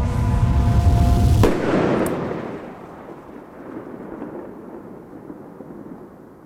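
A firework going off: a sudden bang about a second and a half in, cutting off the music, followed by a long noisy tail that slowly dies away.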